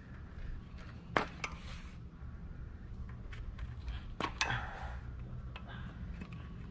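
A few sharp plastic clicks as the electrical connector plugs are unclipped from a 2009 Honda Civic's ignition coils: a pair about a second in and another pair about four seconds in, with smaller ticks between, over a steady low hum.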